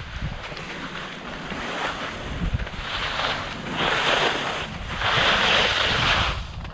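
Fischer skis scraping and hissing over wet, slushy snow in turns, with three louder swishes in the second half, the last the longest. Wind rumbles on the microphone throughout.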